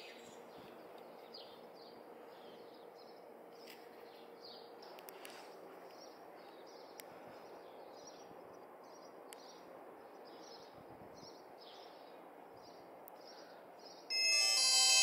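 Birds chirping again and again over faint outdoor background noise. About fourteen seconds in, an L8STAR mini phone's power-on melody starts loudly as the phone boots to its welcome screen.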